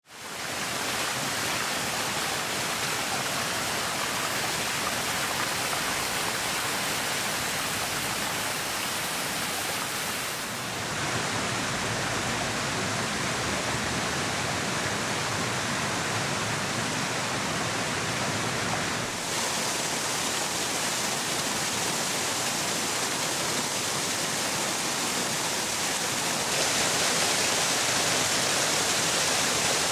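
Water of a stepped cascade fountain pouring in sheets over its ledges: a steady rushing splash. It changes in tone twice and grows a little louder near the end.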